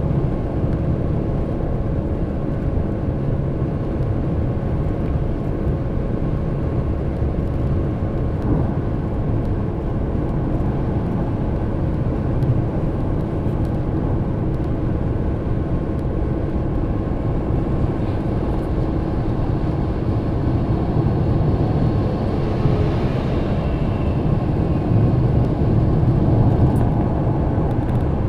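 Steady road and engine noise heard from inside a moving vehicle driving along a paved highway: a continuous low rumble of tyres and engine.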